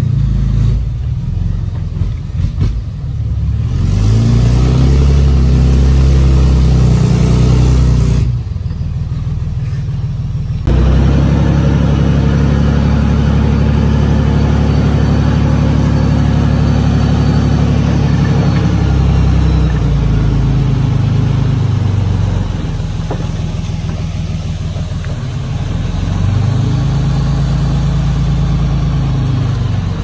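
Diesel dump truck's engine revving up and holding high revs while its hydraulic hoist raises the loaded bed to tip soil. The engine note rises and falls several times.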